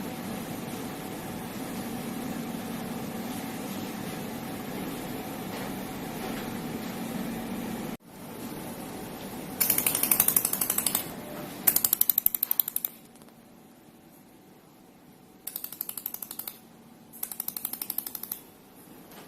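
A steady machine hum that cuts off abruptly about eight seconds in. Then a pulsed laser welder fires four bursts of rapid, evenly spaced snapping pulses, each lasting about a second, as it spot-welds along a seam.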